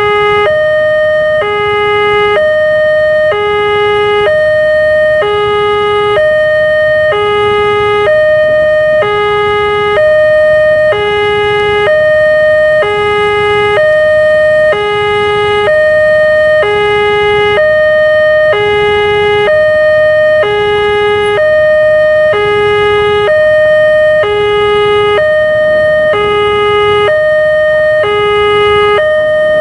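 Railway level-crossing warning alarm sounding its electronic two-tone ding-dong, alternating a low and a high tone, each held about a second, over and over: the gates are down and a train is approaching. A low rumble runs beneath it.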